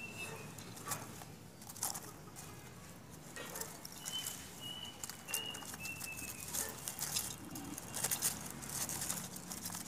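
Chunks of pine bark clicking and rustling as hands press them in around an orchid's roots. A bird chirps a few short high notes in the background about four to six seconds in.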